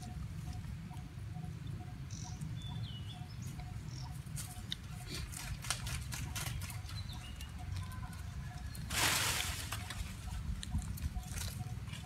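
Crinkling and crackling of a plastic snack packet as a macaque handles it, in clusters of quick clicks, with one louder rustling burst about nine seconds in, over a steady low rumble.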